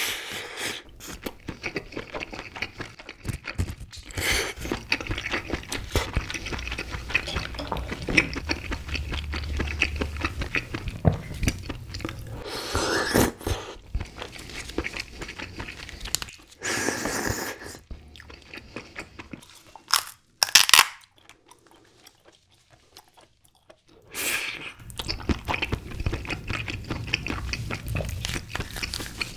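Close-miked chewing of king crab meat, with wet mouth sounds, crunching and the small clicks of shell being handled. A couple of sharp, loud noises come about two-thirds through, followed by a near-silent pause of about three seconds before the chewing resumes.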